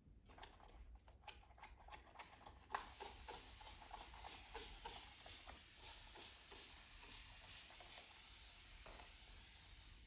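Hand-held spray bottle misting an orchid's leaves: a few soft clicks and handling sounds, then, almost three seconds in, a sudden steady hiss of fine spray that runs on without a break.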